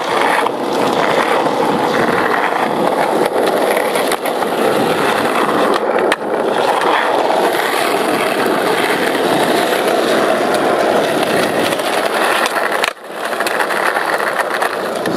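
Skateboard wheels rolling over asphalt: a loud, steady rolling noise, with a few light clicks and a brief dip near the end.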